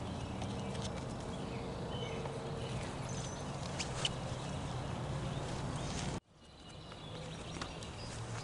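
Outdoor backyard ambience: a steady low background with faint short bird chirps. About six seconds in the sound cuts out abruptly at an edit and fades back up.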